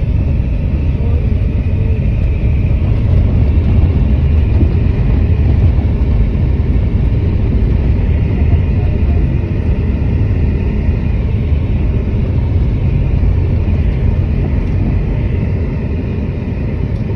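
Steady low rumble of a car moving, heard from inside the cabin: engine and tyres on a gravel road. It gets a little quieter near the end.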